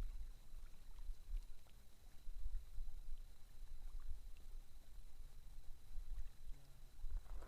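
Low, uneven rumbling buffeting on the microphone that swells and fades, with a few faint clicks.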